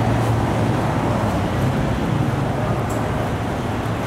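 Steady street traffic noise with the low hum of a running vehicle engine.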